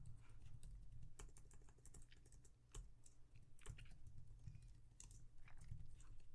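Faint typing and key clicks on a computer keyboard, irregular taps at a few a second.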